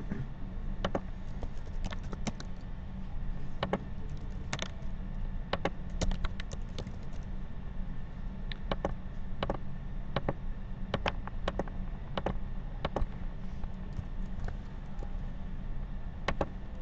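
Typing on a computer keyboard: separate keystrokes in short, irregular runs with pauses between them, over a steady low hum.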